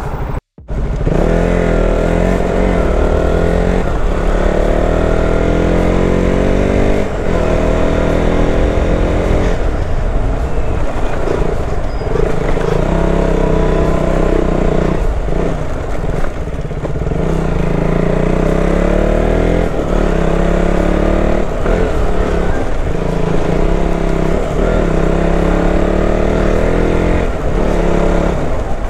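Motorcycle engine being ridden through the gears, its pitch climbing under throttle and dropping at each shift, over a steady low rumble of wind on the microphone. The sound cuts out for a split second about half a second in.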